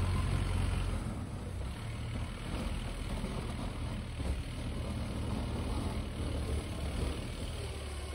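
1987 Toyota 4Runner's engine running as the truck drives away, its low rumble dropping about a second in and fading slowly.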